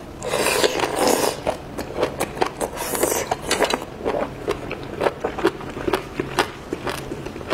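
Close-miked wet eating sounds: a long slurp in the first second as a seafood tentacle is sucked off the skewer, another short slurp about three seconds in, and wet chewing with smacking mouth clicks throughout.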